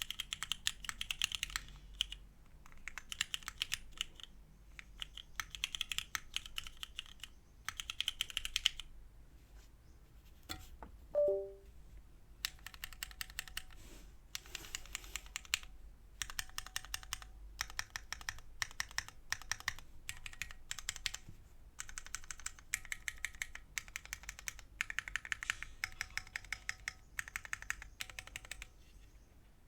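Sagrada gasket-mount mechanical keyboard with Cherry Black linear switches and GMK keycaps being typed on in fast bursts of keystrokes with short pauses between them. About eleven seconds in, a brief falling two-note beep sounds.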